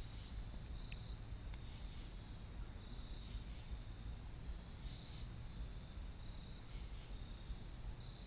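Quiet autumn woodland ambience: insects give short double chirps about every second and a half over a steady high insect drone, with a low steady rumble underneath.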